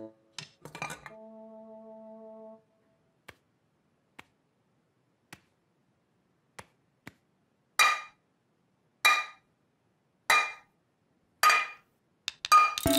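Metal cooking pans clanging: four loud ringing strikes about a second apart, then a quick run of clangs near the end. A short held brass chord sounds about a second in, and a few faint taps come before the clangs.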